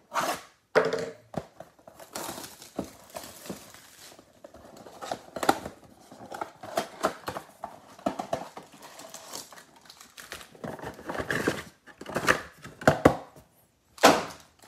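Cardboard trading-card mega box torn open by hand and its foil packs pulled out: tearing cardboard and crinkling wrappers with handling knocks, and one sharp knock near the end.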